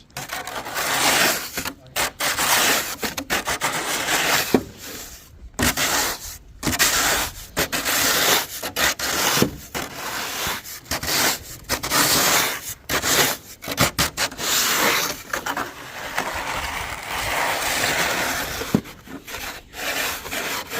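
Snow being scraped off wooden boards in repeated rough strokes, each a short scrape with brief pauses between, at an uneven pace.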